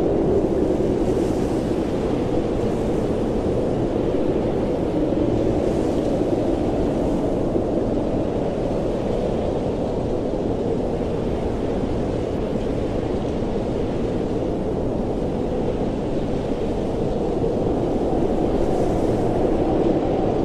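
Blizzard wind: a steady low rushing noise that swells and eases slowly, with faint higher gusts now and then.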